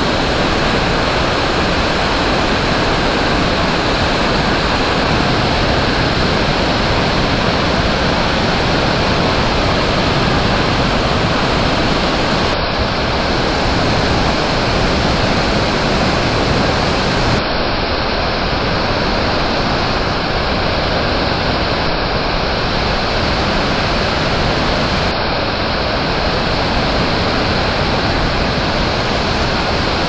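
Fukuroda Falls, a wide multi-tiered waterfall, pouring over rock: a loud, steady rush of falling water.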